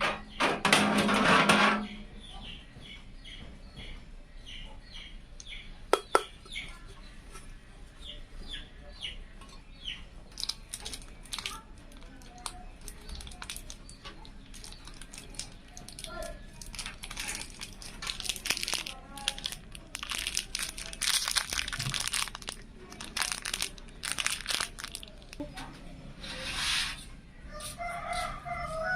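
Scattered clicks and knocks of parts and screws being handled during a PC case build, with one sharp knock about six seconds in. Chickens cluck in the background, and a rooster starts crowing near the end.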